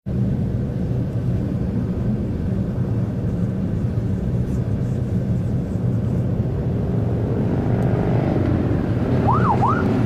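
Car driving, with a steady engine and road drone. Near the end a police siren gives two short rising whoops.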